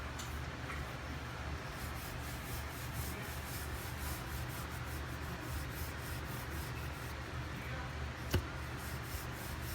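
Rolling pin rubbing back and forth over a stuffed aloo paratha on a rolling board, a steady rhythmic rubbing as the dough is rolled out. One sharp tap a little after eight seconds in.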